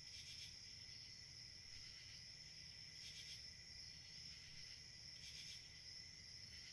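Faint night-time crickets chirring in a steady high trill, with a louder buzzing pulse about every two and a half seconds.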